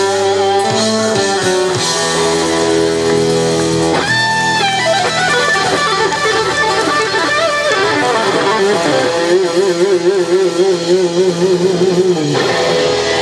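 Lead guitar playing a melodic solo over held band chords. A note slides up about four seconds in, and near the end a note is held with a wide, wavering vibrato.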